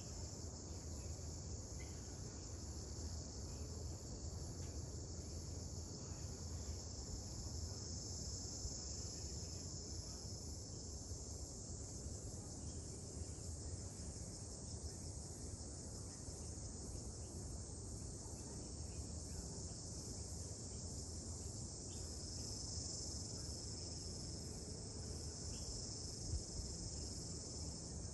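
Background insects calling: a steady high-pitched hiss with a higher, pulsing chirp over it at about two pulses a second.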